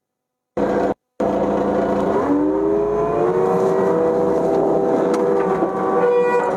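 Kubota KX080-3 excavator's diesel engine running, cutting in and out at edits at first, then rising in pitch about two seconds in and holding steady at the higher speed.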